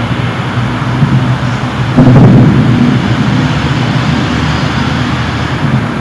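Deep, continuous booming rumble over a city, swelling suddenly about two seconds in and fading slowly. The recorder says it sounds nothing like thunder and had no obvious source.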